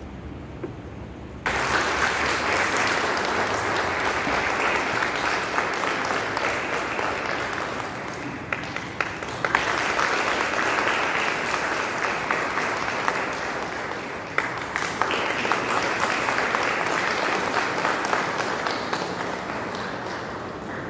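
Audience clapping, starting suddenly about a second and a half in and going in three long stretches with two brief lulls, thinning out near the end.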